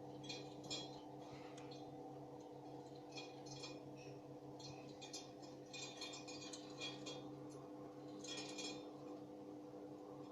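BURNIT PD 10 kW pellet stove during ignition: a steady motor hum, with irregular bursts of small hard clinks as wood pellets drop into its metal burner basket.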